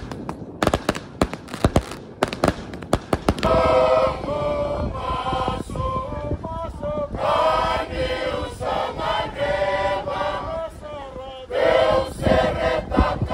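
Fireworks crackle and pop rapidly for about the first three and a half seconds. Then a group of performers sings together in unison, a choir-like chant that carries on to the end with a short dip about eleven seconds in.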